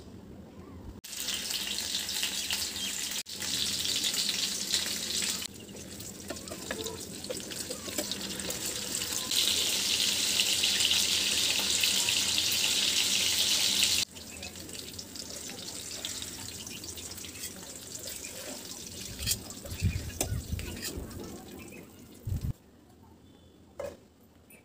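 Hilsa fish steaks frying in hot oil in a pan: a steady sizzle whose loudness jumps abruptly every few seconds. It is loudest from about 9 to 14 seconds in and then drops to a quieter sizzle.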